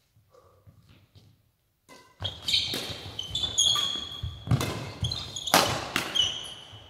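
Badminton doubles rally, starting about two seconds in: rackets strike the shuttlecock with several sharp hits, mixed with high squeaks of court shoes on the sports-hall floor, ringing in the large hall.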